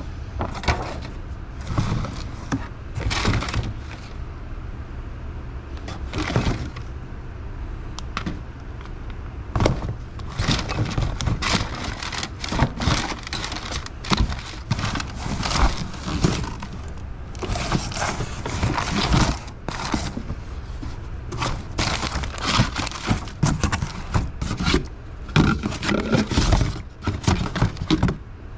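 Irregular clattering, knocking and scraping of objects being handled and moved, with many short sharp knocks and scrapes over a steady low rumble.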